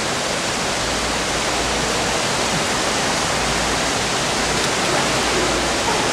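A steady, even rushing noise, like running water, with no distinct splashes.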